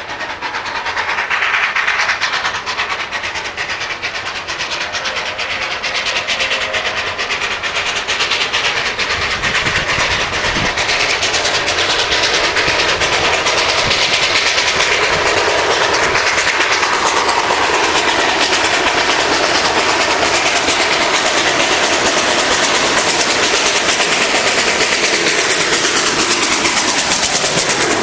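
Steam train approaching along the track and drawing up alongside, its running noise growing louder over the first half and then holding steady as the locomotive comes past.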